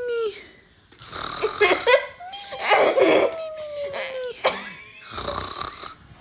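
A person imitating a snore with the voice, cartoon-style: a rasping snort on the in-breath, then a long whistle-like tone on the out-breath that slowly falls in pitch, with a short click just after it.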